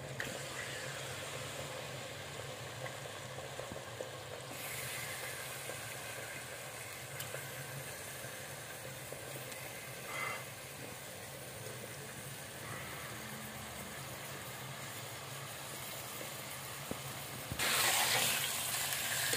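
Raw chicken pieces sizzling in hot oil in a metal pot, a steady hiss that gets a little louder about four seconds in. Near the end it turns suddenly louder as a spatula stirs the pieces through the oil.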